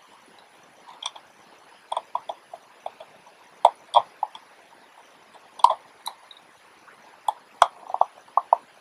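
Irregular small clicks and ticks of a precision screwdriver and fingers working on the metal parts inside a Canon AF35M II camera, loosening a threaded part of the mechanism.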